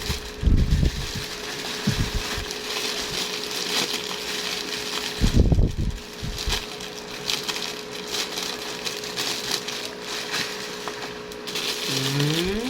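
Packaging crinkling and rustling as a parcel item is unwrapped and handled, with a few soft knocks from handling.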